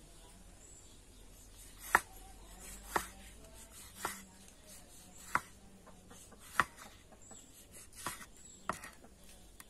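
Cleaver slicing through a tomato and knocking on a wooden cutting board: about seven sharp knocks, roughly a second apart.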